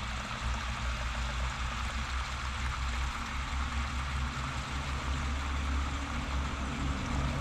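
A steady low engine-like hum with an even hiss over it, the hiss from shrimp and mushrooms simmering in the pot.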